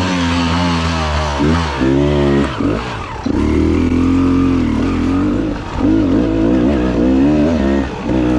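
Dirt bike engine revving up and down as the throttle is worked over rocky trail, its pitch rising and falling repeatedly. It dips briefly about three seconds in, then holds a steadier pitch before wavering again.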